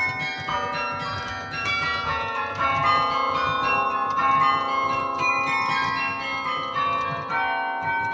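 Carillon bells played by hand from the baton keyboard: a melody of struck bell notes in quick succession, each ringing on so that the tones overlap.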